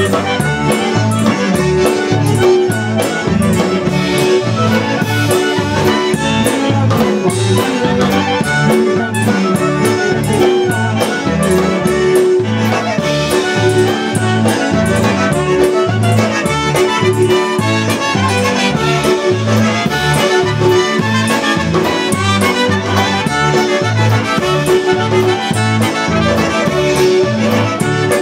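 Polka band playing: two Chemnitz concertinas lead over a steady oom-pah bass line on electric bass guitar, with trumpet joining in.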